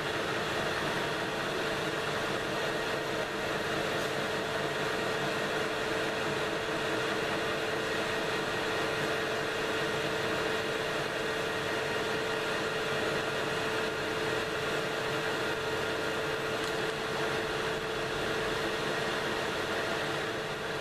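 Metal lathe running steadily, its motor and gearing giving an even hum with a few held tones.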